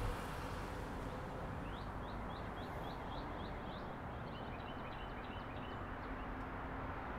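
Steady outdoor background rush with a small bird calling in two quick runs of short rising chirps, about four a second, the first run beginning near two seconds in and the second, a little lower, after about five seconds.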